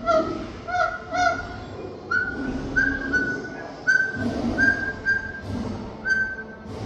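A pet parrot whistling a run of about a dozen short, clear notes, each a fraction of a second long. The first few notes are lower in pitch and the rest are higher.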